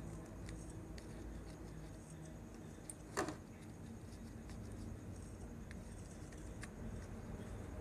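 Faint small ticks of a soldering iron tip working on a circuit board's solder joints, with one short, louder scrape about three seconds in.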